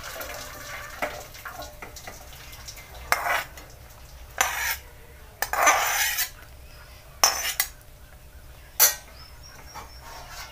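Stainless-steel kitchen vessels clanking against each other, a perforated steel strainer, pot and ladle, as boiled flat bean pods are drained of their cooking water. About half a dozen short, sharp clanks, spread out.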